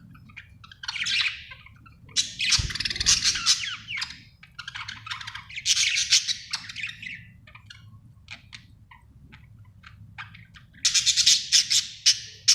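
Budgerigar chirping and chattering in fast bursts of high warbled calls, with only scattered short chirps in a quieter stretch midway, then dense, loud chatter near the end: the chatter of a happy budgie. A faint low thump about two and a half seconds in.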